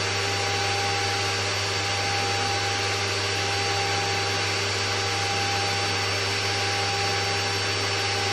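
Steady fan rush of a variable frequency drive (VFD), its cooling fan blowing hard, mixed with the run of a 2.2 kW water-cooled high-frequency spindle at 24,000 RPM. Several constant steady tones sit over the even rush, with no change in speed.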